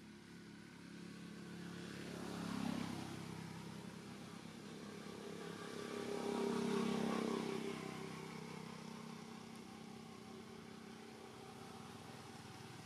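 Motor vehicles passing by one after another, the engine sound rising and fading twice, the second pass louder and longer.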